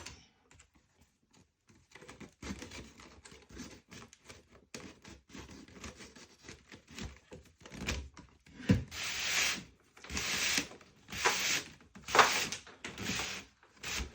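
Soaked seat splint being worked through an old woven splint seat: small scratchy clicks and rubbing, then about halfway through five or six rasping swishes as the strand is pulled through the weave and drawn tight.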